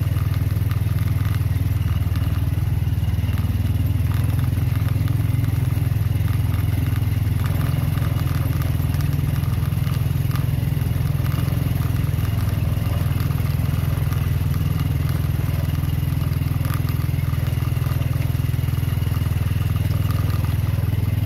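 Small motorcycle engine running steadily at low speed, heard from the pillion seat, with scattered clatter from the tyres over a loose, stony track.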